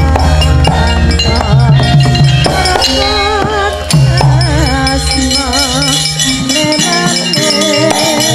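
Javanese gamelan ensemble playing: struck bronze metallophones and drums with ringing notes over a deep, steady bass, and a wavering melody line with vibrato above them. The deep bass drops out about six seconds in.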